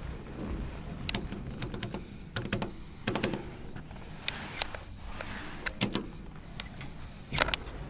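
Hitachi elevator doors sliding under their motor, with a low hum and a scatter of sharp clicks and knocks from the doors and the car's push buttons being pressed; the loudest clicks come near the end.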